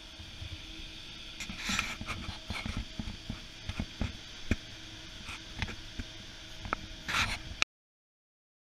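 Scattered knocks, clicks and short scrapes from a handheld camera being moved around, over a steady hum in a large indoor room. The sound cuts off abruptly near the end.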